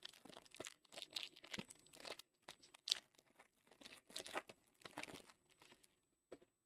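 The foil wrapper of a 2024 Panini Illusions football card pack being torn open and crinkled: a run of short crackling rips.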